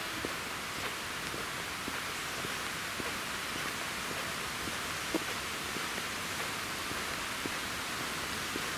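Steady outdoor hiss with faint footsteps on a tarmac path, about one every half second.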